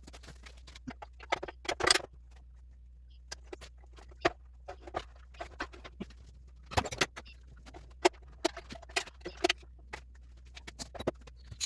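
Tools and metal parts being handled during clutch and transmission work: irregular clicks, taps and short scrapes, the loudest about two seconds in and again near seven seconds, over a steady low hum.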